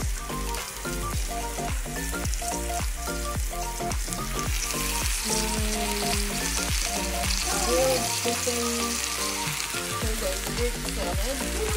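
Food frying in hot oil in a pan, a steady sizzle that sets in a few seconds in, over background music with a steady beat.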